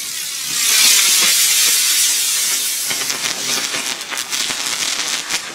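Weco Vampir firework bird flying up with a loud steady hiss, then crackling from about three seconds in as it bursts into sparks.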